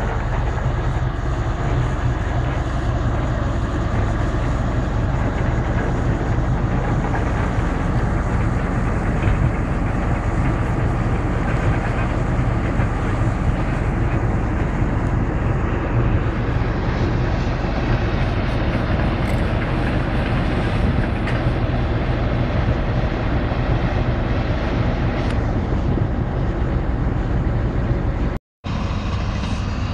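Heavy diesel engine of a crawler excavator running steadily at close range, a deep, even drone. It cuts out for a moment near the end.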